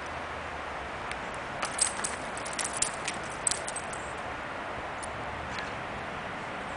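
Golden retriever puppy's collar and leash hardware jingling, a cluster of light metallic clicks from about a second in to about three and a half seconds in, over a steady background hiss.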